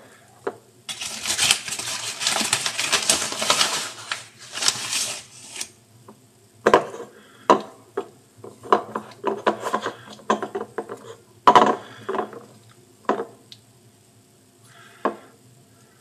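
Kitchen handling noise: a few seconds of rustling, hissing noise, then a run of separate knocks and clatters of a bowl and utensils being handled.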